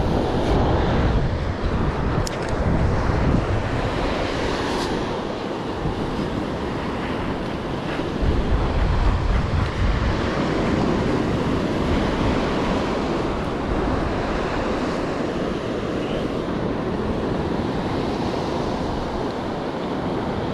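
Gulf of Mexico surf washing onto a sand beach, with wind buffeting the microphone in gusts that are strongest in the first few seconds and again about eight seconds in.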